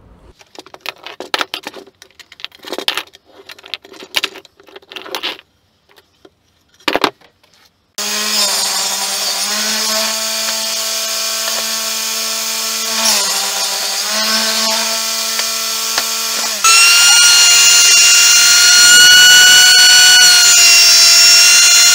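A few scattered knocks and rubbing sounds, then a table saw running as it cuts an oak strip on a crosscut sled, its pitch dropping briefly a few times under load. About seventeen seconds in it gives way to a louder, higher-pitched benchtop jointer running as an oak board is fed across it.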